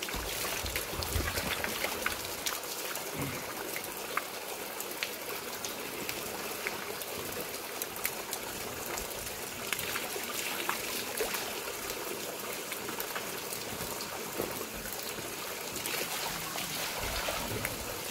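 Spring water running steadily from pipe spouts in a stone wall and splashing into a stone trough, over a bottle being filled and hands held in the stream.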